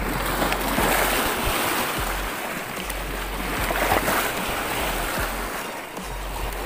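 Small sea waves washing and foaming over shoreline rocks, swelling about a second in and again around four seconds.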